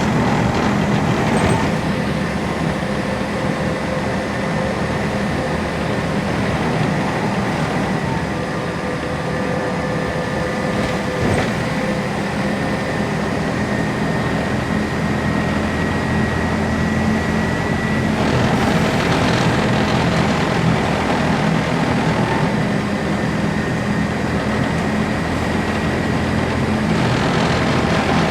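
Ride noise inside a LAZ E183D1 trolleybus under way: a steady rumble of the running gear and road, with the thin whine of the electric traction drive coming and going and slowly rising in pitch over the middle stretch.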